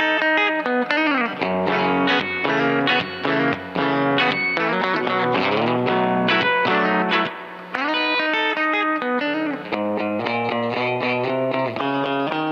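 Electric guitar, a Fender Coronado II, played through a Keeley Compressor Plus pedal into an amp: a country-style run of plucked notes with several notes bent upward, held even and sustained by the compressor.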